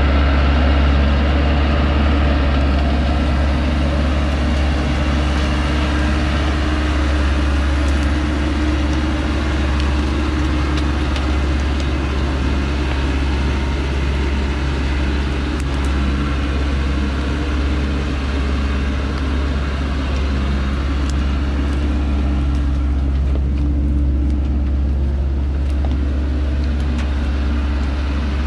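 A heavily loaded log truck's engine running steadily under load as it crawls up a muddy slope, a constant low drone. The higher part of the sound fades near the end as the truck pulls away.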